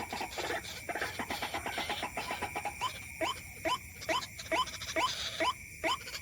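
White-breasted waterhen calls: a fast run of rapid chattering notes, then from about halfway a regular series of short upward-sliding notes, about two a second, over a steady high tone.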